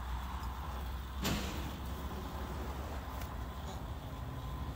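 Steady low outdoor rumble with one sharp knock about a second in.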